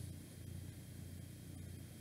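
Quiet pause: faint room tone, a steady low hum under a light hiss.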